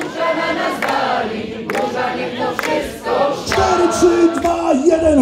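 A male vocal group singing a sea shanty unaccompanied in several-part harmony.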